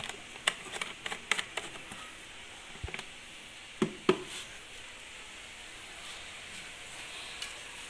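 Plastic engine-oil bottle being handled and capped: a quick run of sharp clicks and taps in the first couple of seconds, then two dull knocks about four seconds in, followed by only a faint steady hiss.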